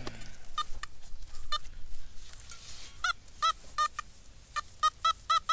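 Nokta Simplex Ultra metal detector's target tone: short pitched beeps as the search coil is swept back and forth over a buried target, a couple of faint ones and then, from about halfway, a run of louder beeps about three a second. The signal reads fairly deep and a little bouncy.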